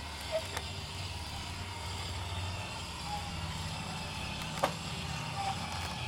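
Electric RV patio awning motor running steadily as the awning rolls out, a low hum that shifts slightly about halfway, with a few light clicks from the awning arms.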